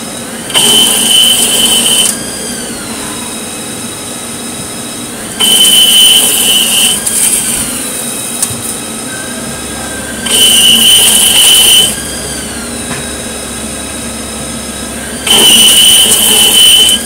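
Haas CNC lathe single-point cutting 2-inch pipe threads on a steel part. There are four heavy threading passes about five seconds apart, each a loud, high screech of the tool in the steel lasting about a second and a half. A short falling whine follows each pass, and the machine runs steadily in between.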